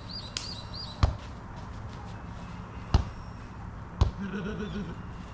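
A jokgu ball being kicked and bouncing during a rally: three sharp thuds about one to two seconds apart, with a fainter tap before them.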